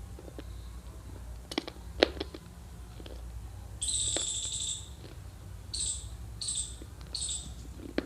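Dry Multani mitti (fuller's earth) being bitten and crunched: a few sharp cracks, the loudest about 2 s in. From about 4 s a high, even-pitched chirp sounds for about a second, then four shorter chirps follow at regular intervals.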